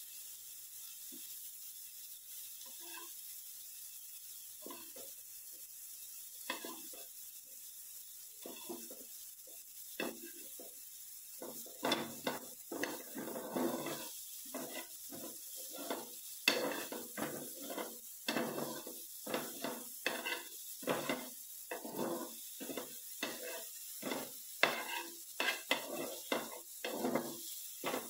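Banana slices sizzling in butter and sugar as they caramelize in a flat nonstick pan, with a steel slotted spatula scraping and tapping against the pan as they are stirred and turned. The scraping is sparse at first and becomes quick and steady in the second half.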